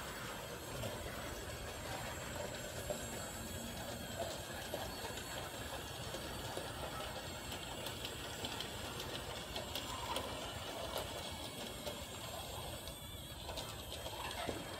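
Battery-powered Disney Monorail toy train running along its plastic beam track: a small electric motor whirring steadily, with faint clicks.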